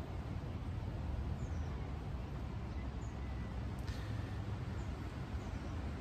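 Steady low background rumble with faint, short high bird chirps every second or two, and one light click about four seconds in.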